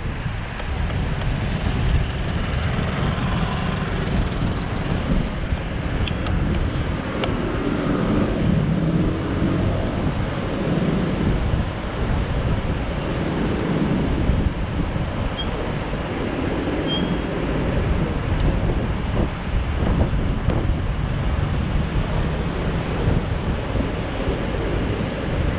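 Steady low rumble of wind and road noise on the GoPro of a moving Brompton folding bicycle, with city traffic around it.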